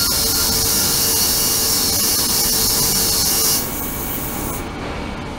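Ultrasonic bath running, its transducers driving the water tank: a loud, even high hiss from the agitated water that cuts off about three and a half seconds in, leaving a lower, steady noise of water.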